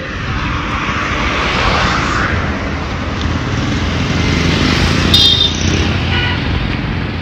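Steady roar of street traffic, with a strong low rumble. A brief high-pitched sound comes about five seconds in, and a fainter one about a second later.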